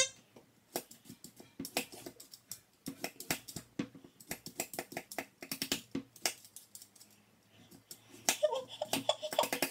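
Hand-held vegetable peeler scraping the skin off a raw potato in quick, irregular strokes, several a second, each a short rasp.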